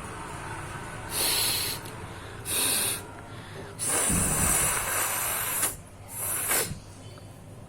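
A person blowing their nose hard in four forceful blasts of air: two short ones, then a long one of about two seconds, then another short one.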